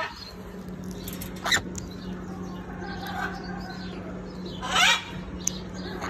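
Parrot squawking: a short sharp squawk about a second and a half in, a softer call about three seconds in, and a longer, louder squawk about five seconds in.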